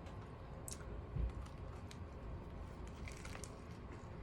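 Quiet chewing and wet mouth smacking while eating a BLT sandwich, with a few faint clicks and a soft low thump about a second in.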